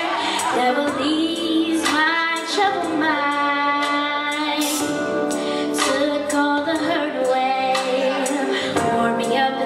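A young girl singing a gospel song solo into a microphone, with held notes that waver in vibrato, over musical accompaniment.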